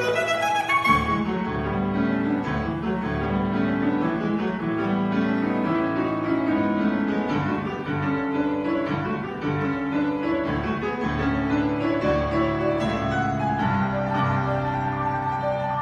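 Piano playing a busy classical passage of dense chords and running notes, the accompaniment part of a saxophone concerto.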